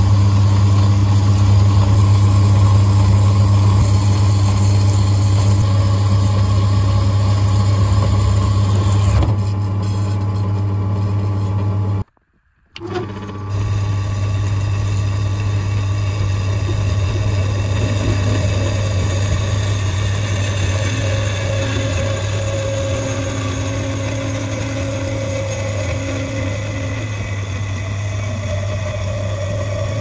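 Electric bandsaw running steadily with a strong motor hum, cutting a length off a steel bar. It stops briefly about twelve seconds in, then runs on.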